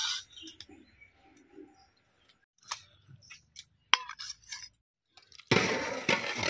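A few light clinks of a steel ladle against steel pots and bowls while fish curry is served. Background music comes in near the end.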